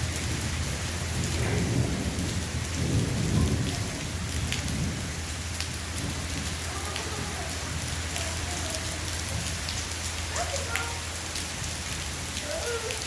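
Heavy rain pouring down steadily, with many close drops ticking on nearby surfaces. A low rumble swells from about one and a half to four seconds in.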